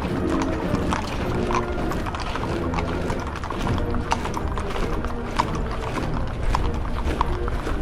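Military parade: band music with held notes over the sharp clatter of many steps striking pavement.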